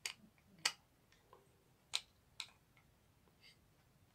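Sharp plastic clicks and taps from an opened USB computer mouse being handled as its cable is fitted back into place. There are four louder clicks in the first two and a half seconds, then a few fainter ones.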